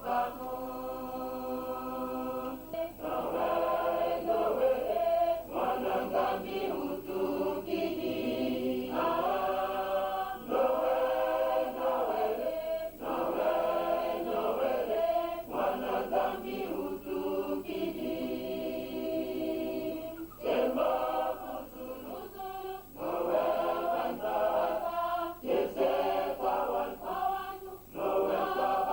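Choir singing, in phrases of a few seconds each separated by short breaks.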